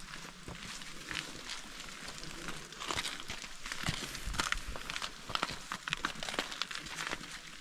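Footsteps crunching on loose volcanic rock: irregular crunches and clicks, several a second.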